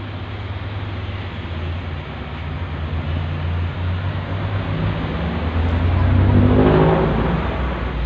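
A motor vehicle engine running steadily, swelling louder and rising slightly in pitch about six to seven seconds in, then easing back.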